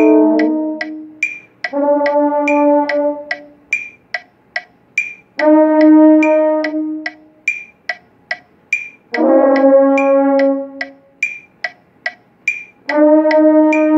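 French horn playing held notes in short phrases of about two seconds, with gaps between them, possibly joined by other players. A metronome clicks steadily about twice a second throughout.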